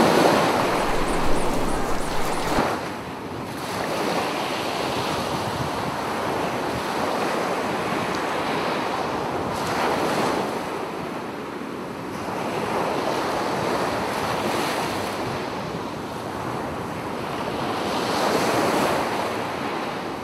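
Sea surf washing onto a sandy beach, swelling and fading every few seconds, with wind on the microphone.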